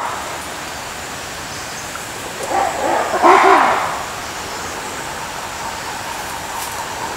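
Black-and-white ruffed lemur giving a short, low, pitched call in two parts about two and a half seconds in, over a steady background hiss.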